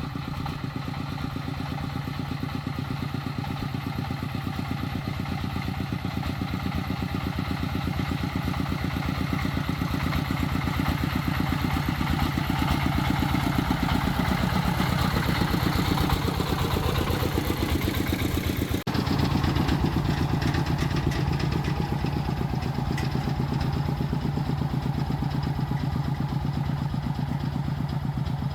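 An agricultural truck's diesel engine running steadily with a rapid, even chug. The sound breaks off abruptly about two-thirds of the way through and picks up again, running the same way.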